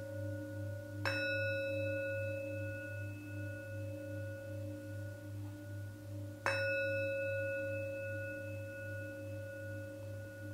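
Singing bowl struck twice, about five seconds apart. Each strike rings on with several steady tones that slowly fade, over a low hum that pulses about three times a second.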